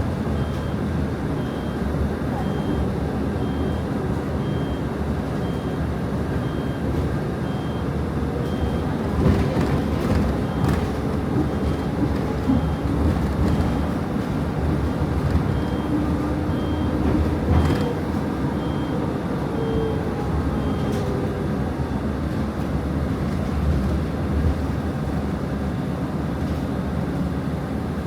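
Bus interior while riding: steady engine and road rumble, with a short high beep repeating a little more than once a second through most of it and stopping about three quarters of the way through. A few sharp knocks or rattles stand out in the middle.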